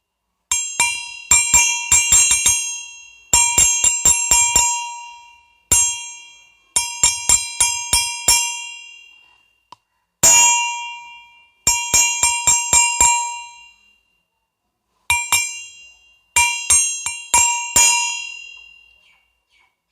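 A small metal bell rung in repeated bursts of several quick strikes, with short pauses between. Each burst rings out with a clear tone and fades away. About ten seconds in there is a single strike instead of a burst.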